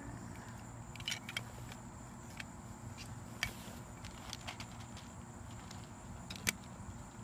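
Scattered light clicks and taps, the sharpest about three and a half and six and a half seconds in, over a steady low hum.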